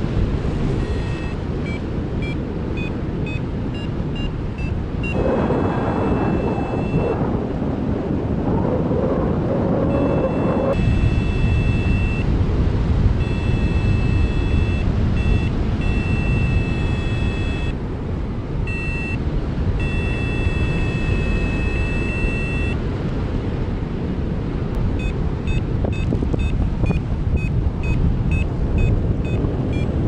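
Wind buffeting the microphone in paraglider flight, with a variometer beeping over it: short beeps stepping up in pitch at first, then an almost unbroken run of high beeps in the middle, then quick short beeps near the end, the tone a variometer gives while the glider is climbing.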